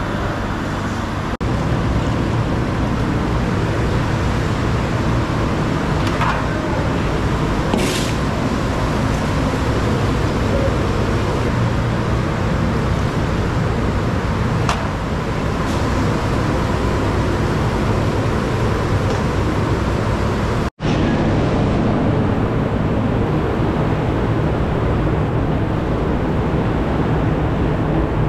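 Steady loud roar of commercial kitchen equipment, with a few faint clicks and clanks and a split-second dropout about two-thirds of the way through.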